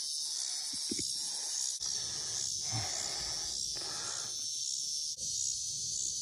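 Steady high insect chorus, with soft breathy hissing sounds coming and going about once a second that stop for the last second or so.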